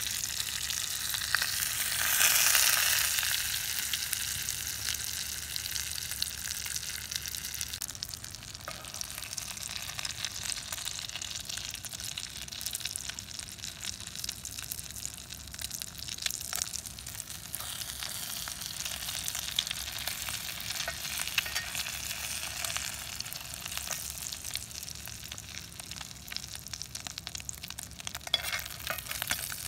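Eggs frying in hot oil in a cast-iron pot: a steady sizzle full of small crackling pops. About two seconds in the sizzle flares loudly for a second or two as a spoonful of liquid hits the hot oil, then settles back to a steady fry.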